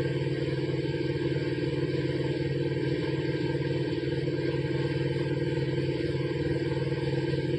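Electric-driven car air-conditioning compressor (a Sanden unit turned by a 1 kW BLDC motor) running steadily with its condenser fan, a constant mechanical hum that does not change.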